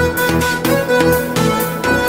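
Upbeat background dance music with a steady beat of about two beats a second.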